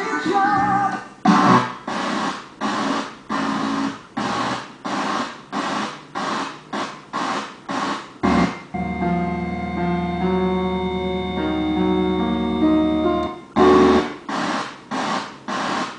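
Onkyo T-403 FM tuner stepping through stations, heard through loudspeakers. Short snatches of broadcast sound and static are cut off by brief silences about twice a second. From around nine seconds in, one station plays keyboard music for about five seconds, then the stepping starts again.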